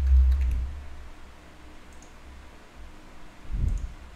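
Computer keyboard keys clicking as a short number is typed, with a few clicks at the start and more near the end. Two dull low thumps, one at the start and one about three and a half seconds in, are louder than the clicks.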